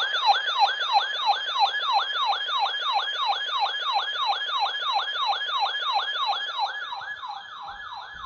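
Electronic siren-like alert tone: a fast yelp that repeats about three and a half times a second, each cycle jumping up and sliding down in pitch, easing off slightly near the end.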